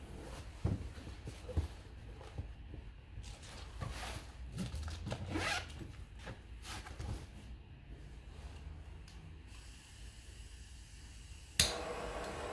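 A fabric fire-resistant document bag being handled and fastened shut: scattered knocks, rustles and zip-like scrapes. Near the end a sharp click as a gas blowtorch lights, then the steady hiss of its flame.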